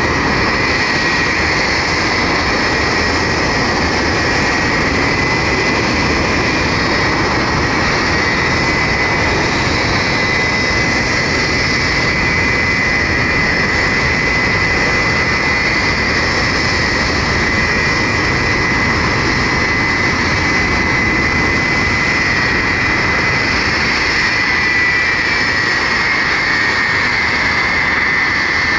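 Ilyushin Il-76 cargo jet's four turbofan engines running loud and steady, with a high whine over the jet noise that rises slightly near the end.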